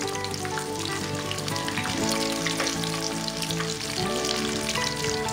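Lumpia-wrapped stuffed chilies deep-frying in hot oil: a steady sizzle full of small crackles and pops from the bubbling oil. Background music with held notes plays under it.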